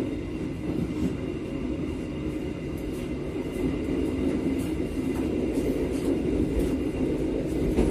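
Gayabaru Malam Selatan passenger train running over the rails, heard from the back of its rear coach: a steady rumble of wheels on track with scattered light clicks. It grows a little louder partway through.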